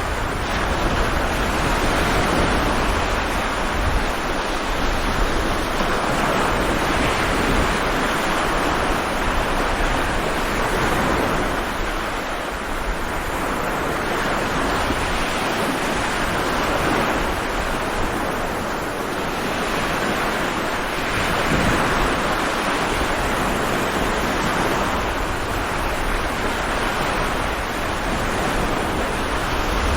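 Stormy sea waves breaking and surging in a continuous wash, swelling and easing slowly, with wind noise mixed in.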